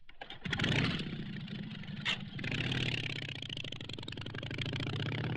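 Motorcycle engine sound effect on a pop record: the engine comes in loud and revving about half a second in, then runs on steadily with a slowly rising pitch.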